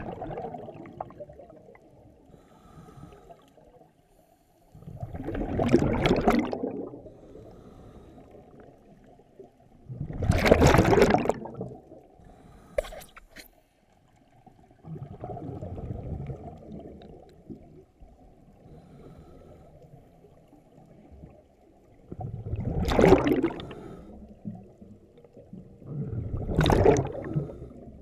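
Scuba divers exhaling through their regulators, heard through an underwater camera housing: about six loud bursts of bubbles, each a second or two long, coming every four to seven seconds over a steady low rumble.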